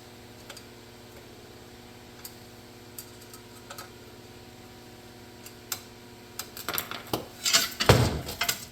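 Small metal parts being handled: scattered light clicks, then a busier clatter and rattle near the end.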